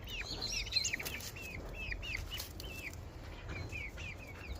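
Young hens not yet laying, giving a steady run of short, high, up-and-down peeping calls, a few each second.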